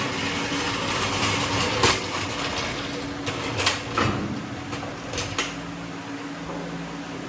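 Several sharp metal clinks and knocks from tools and suspension parts being handled, over a steady fan-like hum.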